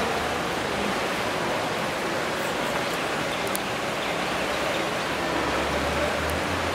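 Steady rushing noise of pool water splashing as water polo players swim. A low hum joins in over the last second or two.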